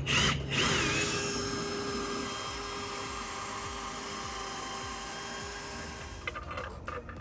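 Power drill running steadily with a constant whine that slowly fades, then a run of sharp clicks near the end.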